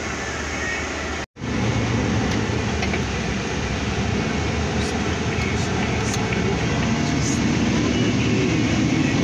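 Mercedes-Benz Actros truck on the move, heard from inside the cab: steady engine and road noise. It cuts out for an instant about a second in and comes back louder.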